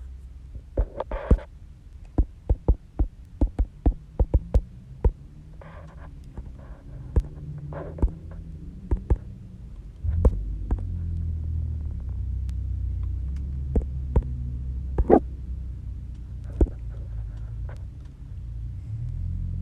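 Typing on a computer keyboard: a quick run of key clicks, then scattered single clicks. About halfway through a steady low hum comes in and stays.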